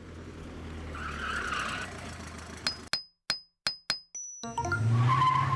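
Animated-logo sound effects: a swelling rush of noise over a low hum, then a quick run of sharp clicks and dings about three seconds in. Near the end comes a cartoon vehicle's engine with a squealing tyre skid.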